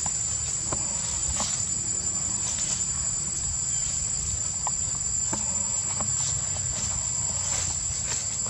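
Insects calling in one steady, unbroken high-pitched tone, with scattered faint clicks and a low rumble underneath.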